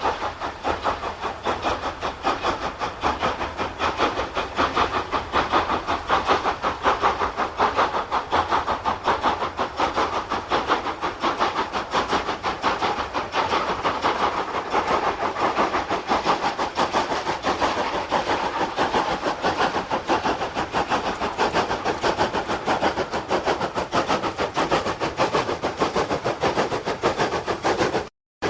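GER N7 0-6-2 tank steam locomotive running under steam, with a fast, even exhaust beat that goes on steadily.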